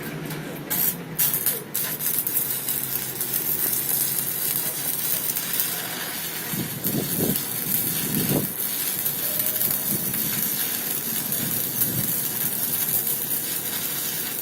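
Stick (MMA) welding arc from a GROVERS MMA-200G inverter welder set to 160 amps, crackling and hissing steadily. The arc strikes with a few sharp cracks about a second in.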